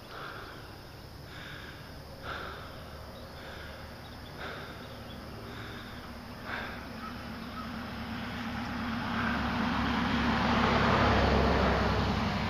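A short sound repeating about once a second, then wind rushing over the microphone that builds up toward the end as the bicycle picks up speed.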